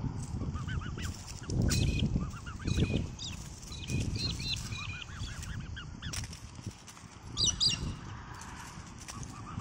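Black swans calling: a running string of short, high peeps and whistles, typical of cygnets, with a louder, brighter call about three-quarters of the way through. Low rumbling noise runs underneath, loudest about two seconds in.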